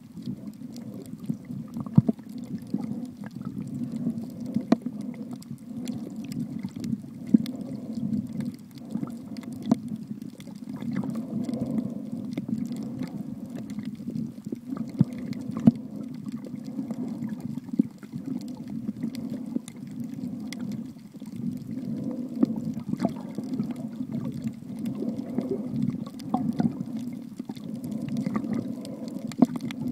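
Muffled underwater water noise as heard by a submerged camera: a steady low rumble of moving water, rising and falling, with scattered sharp clicks.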